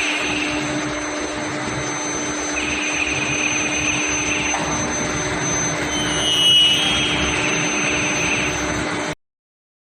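Square steel pipe induction hardening line running: a steady machine hum and hiss with a constant low tone. A high-pitched whine comes and goes three times, briefly louder about six and a half seconds in. The sound cuts off abruptly near the end.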